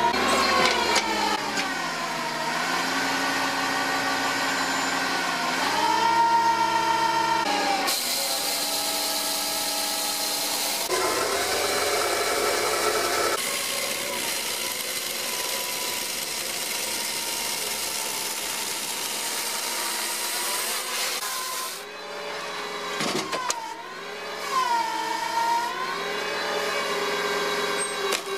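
Engine-driven firewood processing machinery running. The engine's pitch sags under load and recovers several times, with a long stretch of harsh, noisy cutting sound in the middle.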